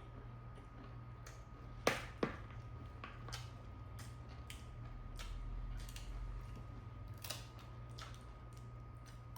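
Quiet eating sounds: scattered crisp clicks and small crunches, with two sharper clicks about two seconds in, over a steady low hum.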